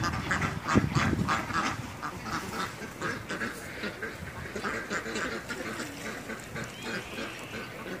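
A group of ducks quacking, many short calls in quick succession, busiest and loudest in the first second or so. A low rumble fades out about a second in.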